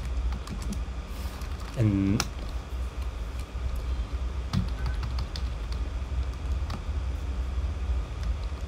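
Typing on a computer keyboard: scattered, irregular key clicks with pauses between short runs.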